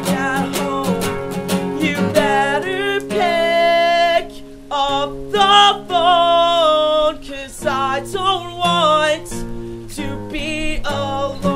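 Acoustic guitar strummed while a man sings a pop-punk song, holding some notes long.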